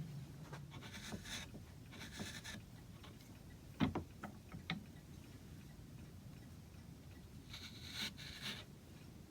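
A hand tool scraping across wood in three short strokes, with a sharp knock and two lighter clicks near the middle, like a tool being set down or tapped on the bench.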